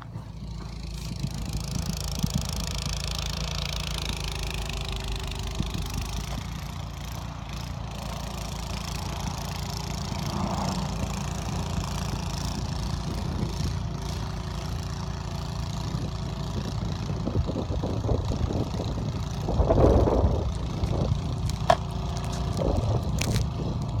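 A small engine running steadily as a low, even drone, with a brief louder burst of noise about twenty seconds in.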